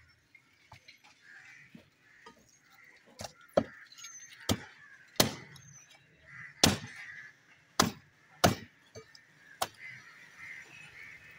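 Butcher's cleaver chopping into a buffalo head on a wooden chopping block: about eight sharp, irregularly spaced blows, starting about three seconds in.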